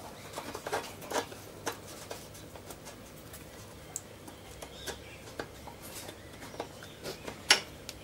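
Scattered small metallic clicks and light scrapes as a tapered roller bearing's outer race, shrunk by TIG weld beads, is wiggled loose by hand in a lathe headstock bore, with the sharpest click near the end as it comes free. A faint steady low hum underneath.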